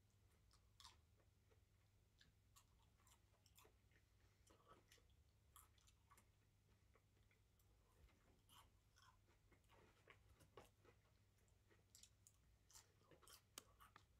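Faint chewing of a Big Mac and fries: soft, irregular clicks and crunches from the mouth, over a low steady hum.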